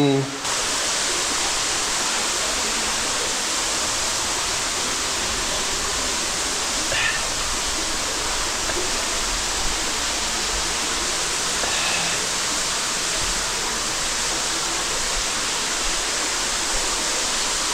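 Cave waterfall pouring, a steady, unbroken rush of falling water.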